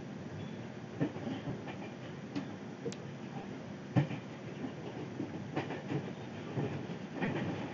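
Passenger train running, heard from inside the carriage: a steady low rumble with irregular short knocks and rattles, the loudest about four seconds in.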